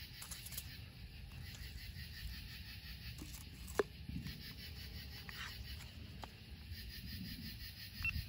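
Faint steady background hiss and low rumble with a few small clicks and knocks, the sharpest about four seconds in; no shell launch or burst.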